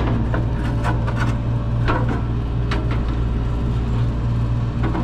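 Scattered metal knocks and scrapes as a condenser fan motor and blade assembly is slid into the unit's sheet-metal housing, over a steady low hum.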